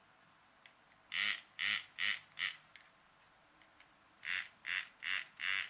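Small toy-car DC motor and plastic gearbox whirring in short spurts, four quick spurts and then four more, as a ground jumper lead is touched briefly to the motor-driver pads on the circuit board.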